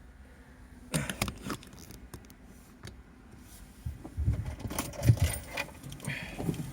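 Light clicks and rattles, then a cluster of dull low knocks and thumps from about four seconds in, like close handling noise.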